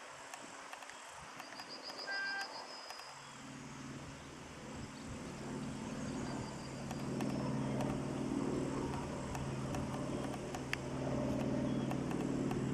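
TEP70 passenger diesel locomotive approaching, its V16 diesel engine running as a steady low drone that starts about three seconds in and grows louder. A brief high trill about two seconds in.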